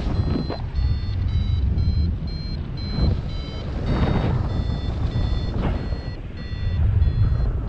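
Paragliding variometer beeping in short, quick, high-pitched tones, about three a second, the sound it makes when the glider is climbing in lift. Wind noise from the airflow buffets the microphone underneath.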